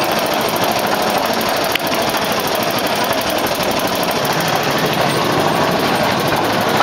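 Small gasoline engine of a bamboo train (norry) running steadily as the platform rolls along the rails. There is a single sharp click about two seconds in.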